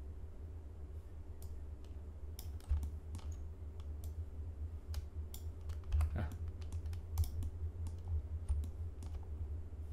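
Computer keyboard keystrokes and mouse clicks, short and irregular, over a steady low hum.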